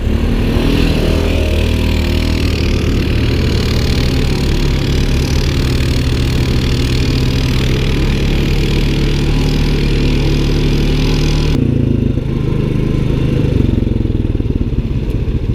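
Off-road vehicle engine (a side-by-side or ATV) running steadily under way, its firing pulses even and loud. About three-quarters of the way through, the sound turns abruptly duller as the hiss above the engine drops away.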